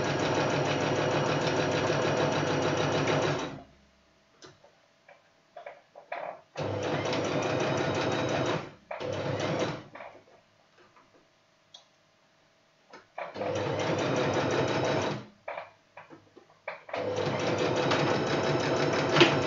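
Singer Talent electric sewing machine stitching, running steadily for a few seconds, then stopping and starting again in several shorter runs with small clicks in between as the hem seam reaches the end of the fabric and is finished with a backstitch.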